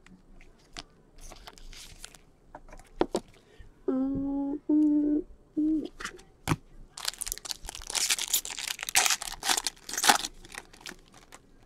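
A card pack wrapper torn open and crinkled by gloved hands, a few seconds of dense tearing and crinkling in the second half, after scattered small handling clicks. Shortly before the tearing, a voice hums a couple of short notes.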